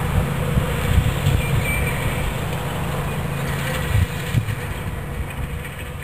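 Honeybee swarm buzzing, a steady low hum that eases down near the end.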